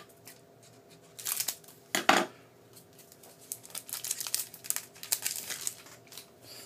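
Foil wrapper of a hockey card pack crinkling and tearing as it is ripped open, then the stack of cards rustling as it is slid out and handled. The rustles come in short irregular bursts, the loudest about two seconds in.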